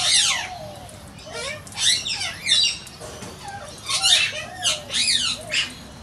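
Galahs calling: harsh, screechy calls from several birds, coming in three clusters, each of several quick calls.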